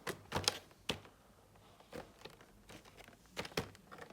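Hands handling product packaging: a series of irregular sharp clicks and taps with light crinkling, the clearest in the first second and again about three and a half seconds in.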